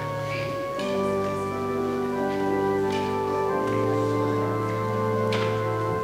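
Organ playing slow, held chords that change every few seconds, with a faint sharp click about five seconds in.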